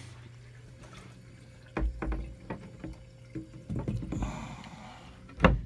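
Water circulating and splashing through a reef aquarium's plumbing, over a steady low hum from the circulation pumps. There are several short knocks around two and four seconds in and a louder thump near the end.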